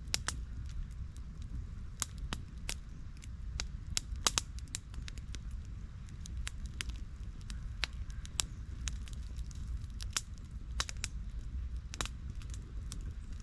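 Wood campfire crackling, with sharp irregular pops over a low steady rumble.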